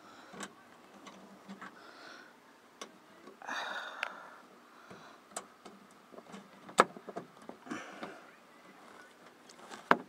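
Handling noise from fitting a plastic inside door handle into a Ford F-250 truck door: scattered light clicks and knocks, a short scraping rustle about three and a half seconds in, and two sharp clicks, one near seven seconds and one at the very end.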